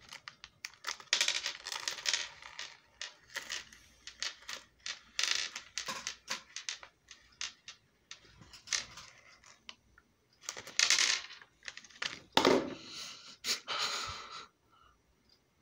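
M&M's candies poured from their plastic bag, clicking and clattering onto a hard tabletop while the bag crinkles. They come in several bursts with short pauses between and stop shortly before the end.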